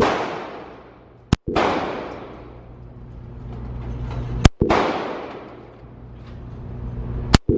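Gunshots fired singly, about three seconds apart, each a sharp crack followed by a long echoing decay.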